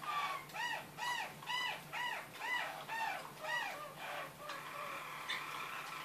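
Roller canary singing: a run of repeated arched notes, about two a second, that grow smaller and fade out after about four seconds, followed by one short note near the end.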